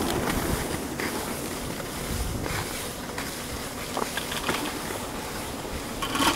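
Skis sliding over the packed snow of a T-bar lift track while being towed uphill, a steady noisy rush with low rumble and a few faint clicks.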